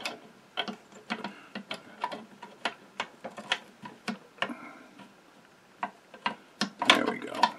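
Irregular metallic clicks and light knocks as the lifter shaft is worked into place in the underside of a Singer 15-91 sewing machine's cast-iron bed, with a short lull a little past the middle and a busier cluster near the end.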